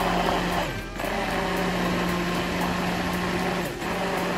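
Handheld immersion (stick) blender pureeing blanched rapini with a little cooking water in a tall beaker. The motor runs at a steady pitch, briefly cutting out and spinning back up twice.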